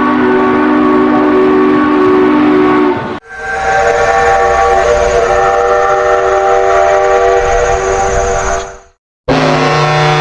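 Made-up train whistle sounds, each a held chord of several notes, played one after another. One cuts off about three seconds in. A higher-pitched chord follows and stops shortly before the end. After a brief gap, a third, lower chord starts near the end.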